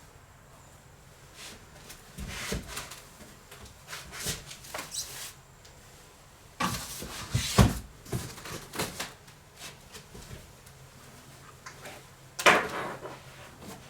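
Irregular knocks, bumps and scrapes of stored items being moved and handled while someone rummages through them. The sounds come in clusters, with the loudest knocks about seven and a half seconds in and again near the end.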